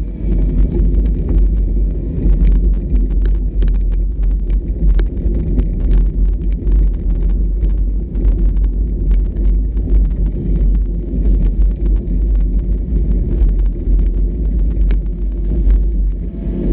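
Off-road vehicle running over a rough trail: a steady low rumble with frequent short knocks and rattles.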